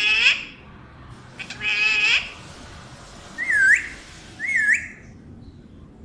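Alexandrine parrot calling twice, then giving two short whistles about a second apart. Each whistle dips and then rises sharply.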